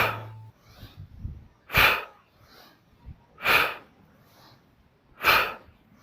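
A man's sharp, forceful exhalations, one about every second and three-quarters, in time with each rep of a hip hinge exercise.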